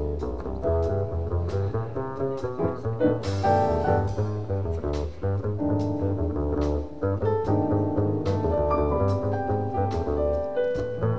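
Live jazz piano trio playing: a stage piano over a walking upright double bass line, with a drum kit keeping time on drums and cymbals.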